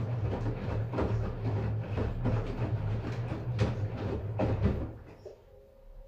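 LG Direct Drive front-loading washing machine tumbling a wash load: a steady low motor hum with the laundry thudding irregularly as the drum turns. The drum stops about five seconds in and the sound drops away.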